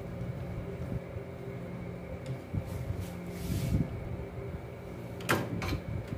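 Small taps and handling noises of wiring work on a contactor panel, with a sharp metallic click about five seconds in and a lighter one just after, over a steady background hum.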